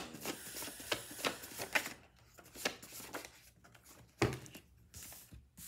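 A deck of coloured card-stock oracle cards being shuffled by hand: a fast run of papery flicks for about two seconds, then scattered flicks. There is one sharp thump about four seconds in.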